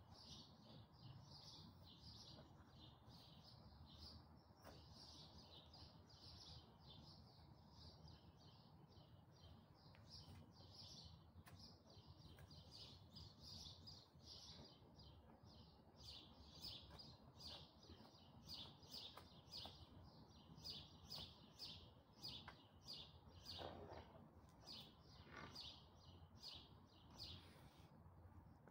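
A small bird chirping over and over, faint, about two or three short high chirps a second, over a low steady background rumble.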